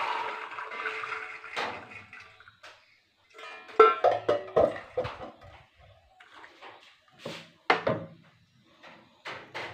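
Soaked chickpeas and their water poured from a steel vessel into a pressure cooker, a wet rattling pour for about two seconds. Then ringing metal clatter of the cookware and a few sharp knocks near the end.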